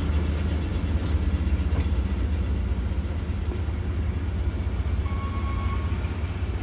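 A DE10 diesel-hydraulic locomotive's diesel engine runs with a deep, steady rumble as the locomotive moves slowly away, growing slightly fainter.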